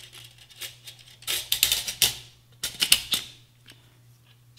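AR-15 buffer and buffer spring being pushed into the rifle's buffer tube: two short runs of metallic clicks and scrapes as the spring coils and buffer slide in, the first about a second in and the second around three seconds in.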